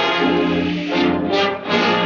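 Orchestral cartoon score led by brass, trombones and trumpets playing a run of held notes.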